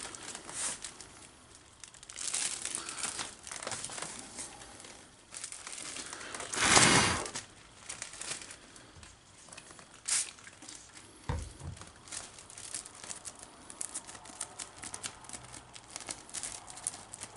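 Clear plastic zip-lock bag crinkling and rustling as it is handled and a foil-wrapped begonia leaf cutting is slipped inside. There is a louder hiss-like burst about seven seconds in and a soft knock a few seconds later.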